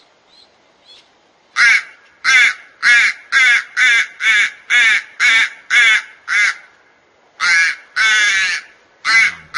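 Crow giving a run of about ten short, harsh caws at roughly two a second. After a brief pause, it gives a few more, one of them longer.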